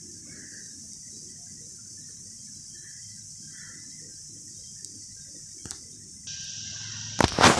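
Steady high-pitched background hiss with a faint low rumble. About a second before the end the noise steps up and a few sharp clicks follow.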